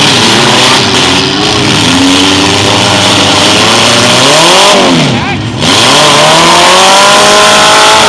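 Several compact demolition-derby cars' engines revving hard at once, their pitch rising and falling as they accelerate and back up. About five seconds in, one engine revs up sharply and drops off.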